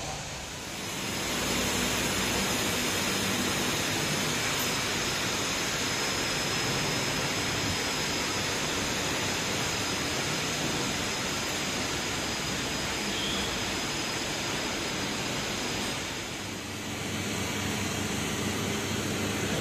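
Forklift engine running under a loud, steady rushing noise, with a faint low hum beneath it; the noise dips briefly near the end.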